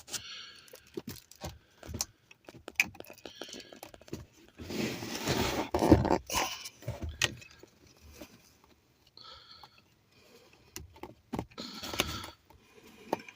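Scattered plastic clicks and rattles with some metallic jangling as the wiring plug is pressed and wiggled loose from a 2004 Honda Accord's ignition switch. There is a longer scraping rustle about five seconds in and another near the end.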